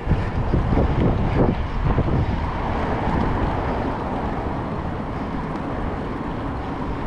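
Steady noise of heavy freeway traffic, with wind buffeting the microphone as the bike moves; it swells suddenly at the start and then holds loud and even.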